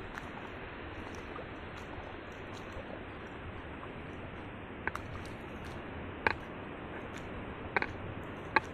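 Footsteps wading through shallow water over a coral reef flat, with a steady hiss underneath. A few sharp splashes stand out in the second half.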